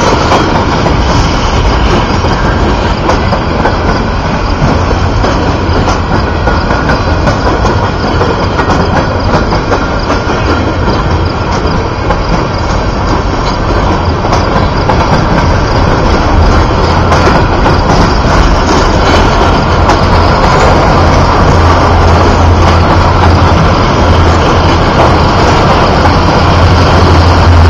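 A freight train of sand-filled gondola cars rolling past close by, with steady wheel-on-rail noise. From about halfway, the deep hum of the diesel locomotives pushing from behind grows louder as they come alongside near the end.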